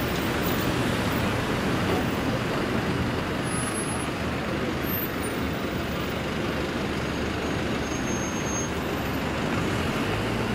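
City street traffic: a steady noise of vehicles on the road with a low engine hum underneath.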